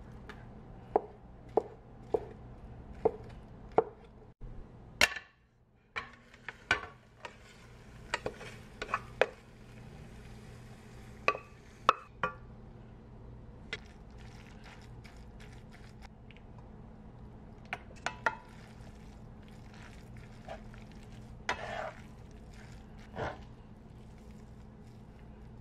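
Knife cutting an egg omelette on a plastic cutting board, a few sharp taps about half a second apart. Later metal tongs knock and clink against a pan while tossing glass noodles. A steady low hum runs underneath.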